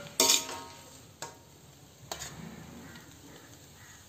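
Metal spatula knocking and scraping against an iron kadhai as the finished aloo methi is scooped up to serve: a few sharp metallic clinks, the loudest just after the start with a brief ring, then single clinks about a second and two seconds in.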